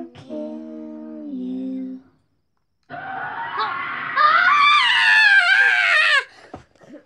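A long, wavering scream sound effect that starts suddenly about three seconds in, grows louder a second later and cuts off abruptly. Before it comes the tail of an eerie tone of held notes stepping down in pitch, which stops short.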